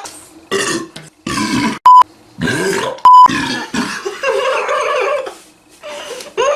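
A run of loud burps from young men after drinking soda, about six in a row, some short and one long one lasting over a second. Two short, very loud high beeps cut in, about two and three seconds in.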